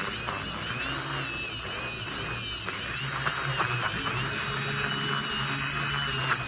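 Handheld battery milk frother's small electric motor running steadily, a whirring with a high whine that wavers slightly in pitch.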